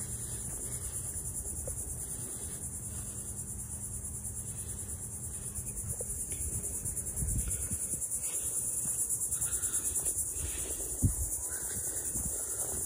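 A steady, high-pitched chorus of insects in the scrub, a fast pulsing buzz that never lets up. Underneath it come low, irregular thuds of footsteps on the sandy path, with one sharper knock about eleven seconds in.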